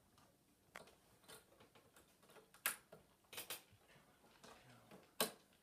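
A handful of sharp clicks and taps, plastic and metal, from hands and a screwdriver working at the wiring terminal block of a ductless heat pump's indoor head unit while control wires are fastened. The two loudest clicks come near the middle and about five seconds in.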